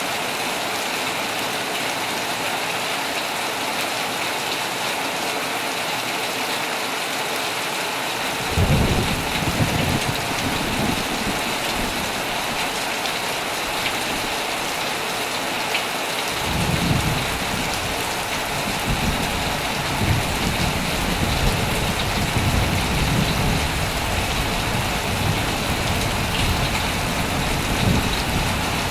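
Heavy rain falling steadily, with low rolling thunder that rumbles in about eight seconds in, fades after a few seconds, then comes back about halfway through and rolls on to the end.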